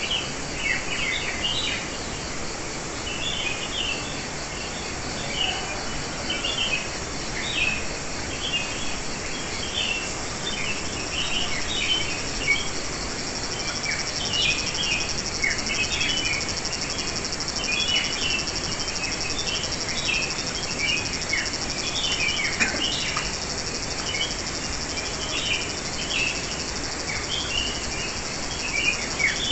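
Wild songbirds chirping in a dense, continuous chorus of short shrill notes and quick falling calls. Under them runs a steady high insect trill that grows louder about halfway through.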